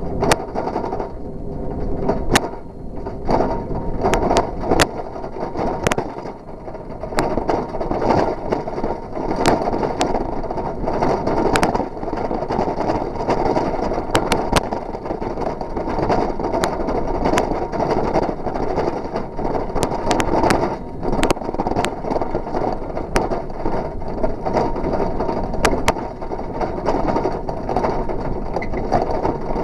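Bicycle rolling over rough, cracked asphalt: a steady rumble and rattle with many scattered sharp clicks and knocks.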